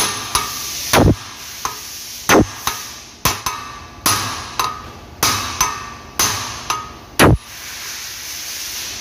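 Ball-peen hammer striking a steel drift to knock the front wheel bearing out of a Suzuki Ertiga's steering knuckle: sharp metal-on-metal blows about every half second, some ringing briefly, with a few heavier thuds. The bearing is tight in the knuckle and resists the blows.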